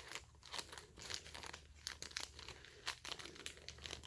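Paper manuals and cardboard packaging rustling and crinkling as they are handled, in quiet, irregular short scrapes and crackles.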